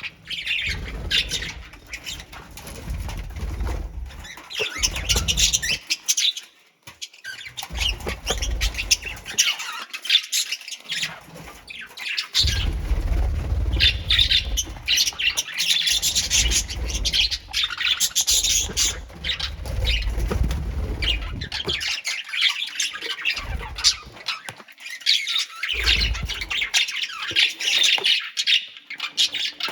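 A colony of pet birds chattering, with many overlapping fast chirps and squawks. Patches of low rumble come and go underneath.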